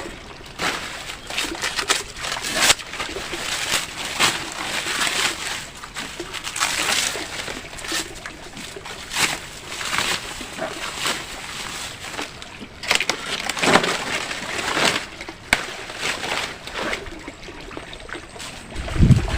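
Water sloshing and splashing in uneven bursts.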